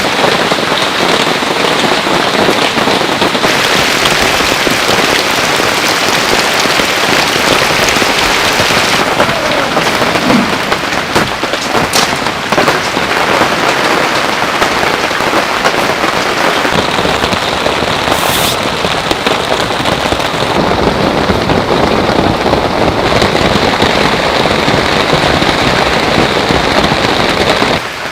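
Heavy rain pouring steadily and loudly, with a single sharp click about twelve seconds in.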